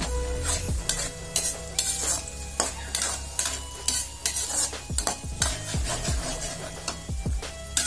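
Metal spatula scraping and stirring garlic, ginger and onion frying in oil in a metal wok. Repeated scrapes against the pan, about one or two a second, over a light sizzle.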